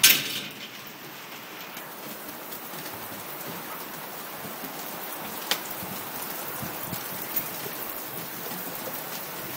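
Steady rain falling, an even hiss. A sharp knock right at the start is the loudest moment, and a single click comes about five and a half seconds in.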